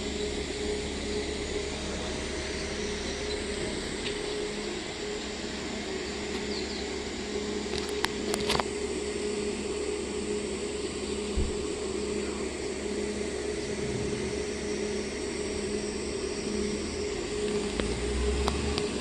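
Steady machinery hum with a constant mid-pitched tone, and a few faint clicks about eight seconds in.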